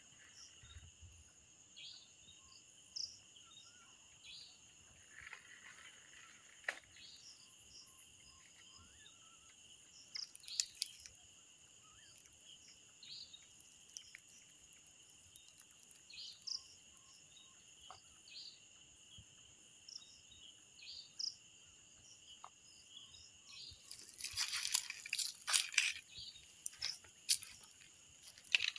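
Night insect chorus, crickets trilling steadily at two high pitches, with scattered faint clicks. About four-fifths of the way through comes a burst of loud crackling crunches.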